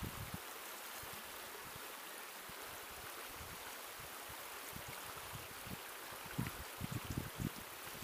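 Shallow river rushing steadily over stones. From about six seconds in, irregular low thumps join it.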